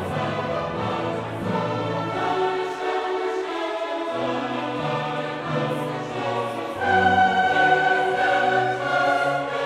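Background classical music: a choir singing held notes with orchestra, swelling louder about seven seconds in.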